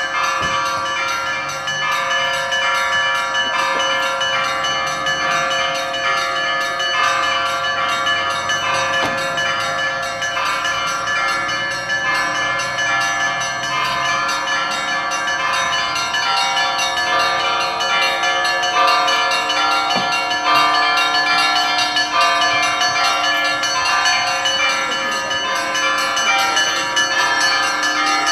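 Church bells ringing continuously: several bells of different pitches sounding together in a steady, unbroken peal.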